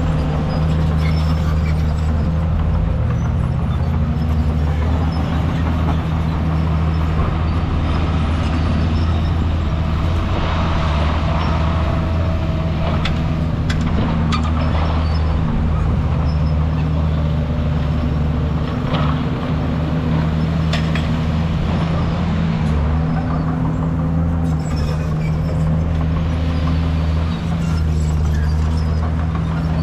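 Diesel engine of heavy earthmoving machinery running steadily under load, its pitch rising and falling a little every few seconds, with several sharp metallic clanks.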